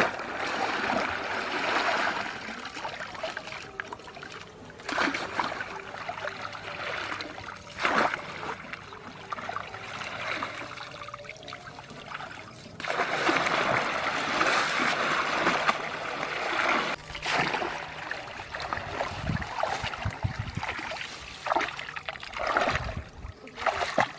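Shallow muddy water splashing and sloshing as a woven bamboo basket is swept and scooped through a drained pond, in uneven bouts with short pauses between them.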